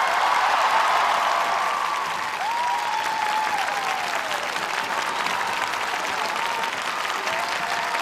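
Large arena crowd applauding and cheering at the end of a figure skating program, steady dense clapping with voices calling out above it.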